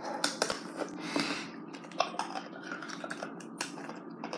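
Ice being bitten and crunched, a string of sharp cracks and clicks.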